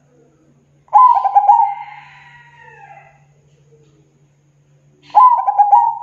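Zebra dove (perkutut) cooing: two phrases of rapid stuttering coos, one about a second in and one near the end.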